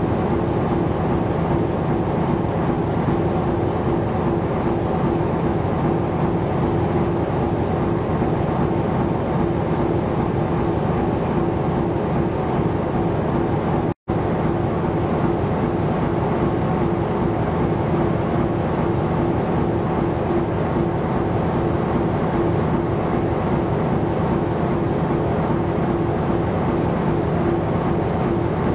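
Steady engine drone of a ship under way, with a constant mid-pitched hum over a rushing noise. It cuts out for an instant about halfway through.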